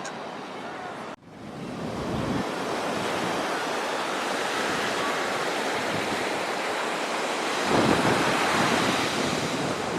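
Sea waves breaking and washing up the beach, the sound dropping out for a moment about a second in and then swelling back. A larger wave surges in louder near the end.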